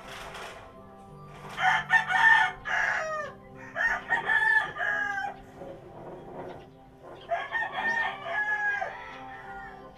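A rooster crowing three times, each crow ending on a falling pitch, over soft steady background music.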